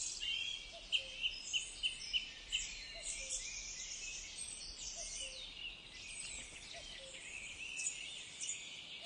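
Small birds chirping and twittering, many short high calls overlapping, with a quick run of repeated notes in the first couple of seconds.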